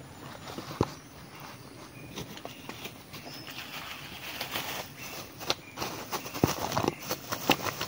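Paper food wrapper and a small plastic bag crinkling and rustling as they are handled during a meal, with scattered crackles and clicks that grow busier in the second half.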